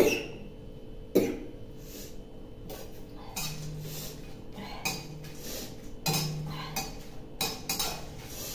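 A woman coughs sharply twice, set off by the fumes of chillies frying. Then a utensil clinks and scrapes against the pan a number of times.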